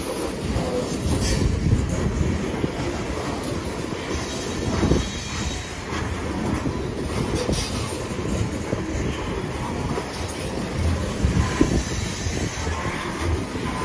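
Loaded coal cars of a freight train rolling steadily past at track side: continuous rumble and clatter of steel wheels on rail, with occasional clanks.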